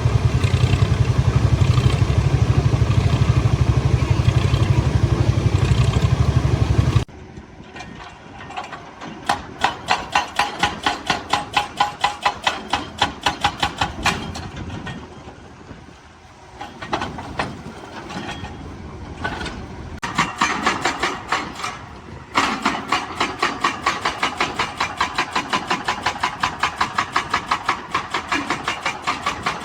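Heavy construction machinery at work: a large diesel engine runs loudly with a deep rumble for about seven seconds. After an abrupt change, a regular knocking of about three strikes a second comes and goes.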